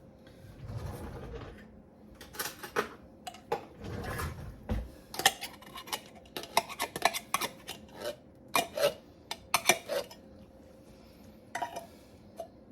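A spoon scraping and tapping against a tin can and casserole dish as canned beans and corn are emptied in, with two soft slides of food and many sharp metallic clinks.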